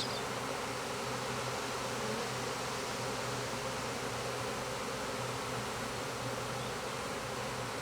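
Honeybee swarm buzzing, a steady, even hum that does not change.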